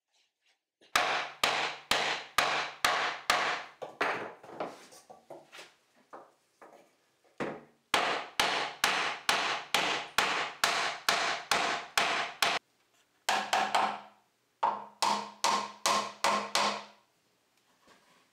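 Steel hammer striking the wooden parts of a treadle lathe frame's joint at its base: steady blows, about three a second, each with a short wooden ring. The blows come in three runs with brief pauses between them.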